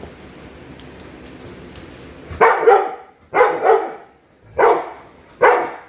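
Pet dog barking about four times in quick succession, starting about halfway in, in a bid to go outside and play.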